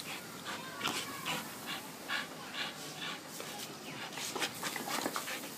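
Dog panting in a steady rhythm of about two to three breaths a second.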